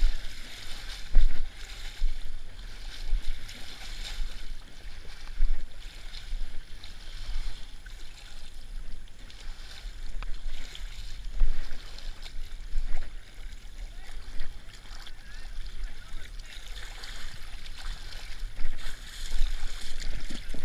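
Muddy water splashing and sloshing as a runner wades through a pit, in uneven surges, over a low rumble of wind on the body-worn camera's microphone.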